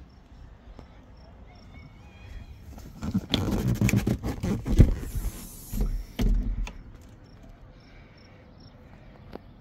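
Handling noise from the boat's cushion and engine hatch being lifted: rustling, scraping and a few knocks and clicks, loudest about halfway through.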